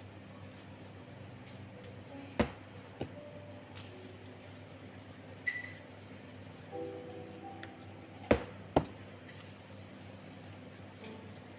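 Kitchen clatter: two pairs of sharp knocks, the second pair about six seconds after the first, and a short high ding about halfway through, over a steady low hum.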